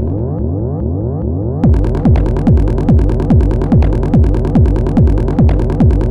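Psy-techno pattern played on an Elektron Model:Cycles groovebox. It opens with a rising synth sweep over the bass and no hats. Less than two seconds in, the kick drum drops back in, about two and a half beats a second, with hi-hats running over it.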